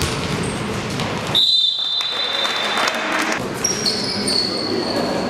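Game sounds of an indoor basketball match: the ball bouncing on the court and sneakers giving short, high squeaks on the gym floor, with one longer squeak about a second and a half in, over a steady background of court noise.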